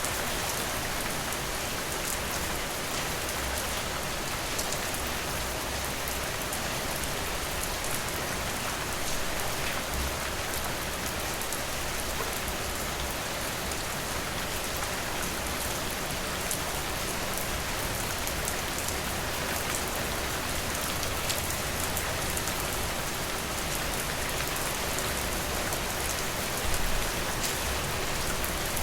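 Steady rainfall, a dense even hiss with fine scattered drop taps.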